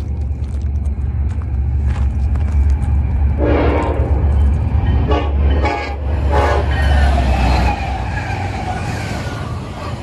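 Union Pacific SD70AH diesel locomotive running fast past at close range, its engine rumble building as it nears. Its air horn sounds one longer blast about three and a half seconds in, then three short blasts. The heavy engine rumble drops off suddenly just before eight seconds in as the locomotive goes by, leaving the rolling noise of the double-stack cars.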